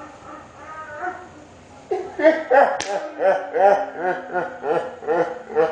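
Young women laughing hard, a quick run of high-pitched giggles about three a second starting about two seconds in, with a single sharp slap about a second later.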